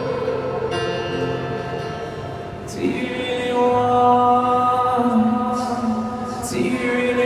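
Live acoustic song in a large arena: acoustic guitar and a held, sung vocal, recorded from the crowd on a phone. Two brief sharp sounds cut in, about a third of the way through and near the end.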